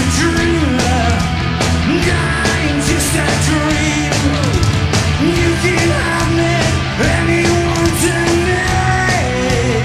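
Live rock band playing an instrumental stretch: a held, bending lead guitar line over a dense bed of distorted rhythm guitar, bass and drums.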